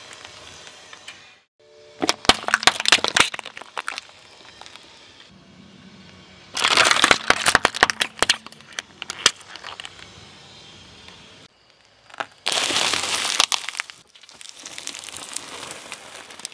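Car tyre rolling over and crushing packaged foods and plastic containers: four separate bursts of cracking and crinkling packaging, each a couple of seconds long, with short gaps between. The third, about halfway through the second half, is the loudest and densest.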